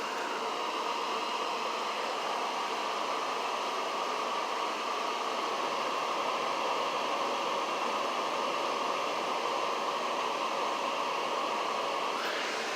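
Janitrol furnace running with a steady rushing noise of air and fan. The hiss loses its brighter upper part just after the start and turns brighter again near the end.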